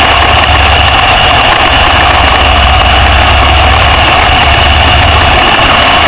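Dirt-track race car's engine running steadily, heard loud from inside the cockpit, with a heavy low rumble that eases near the end.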